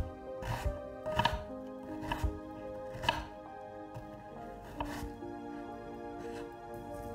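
Knife slicing a red onion on a wooden cutting board: irregular knocks of the blade through the onion onto the board, about one a second at first and sparser in the second half.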